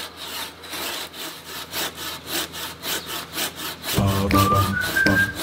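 Hand saw cutting through a tree branch in quick, even back-and-forth strokes. Light background music with a whistled tune comes in near the end.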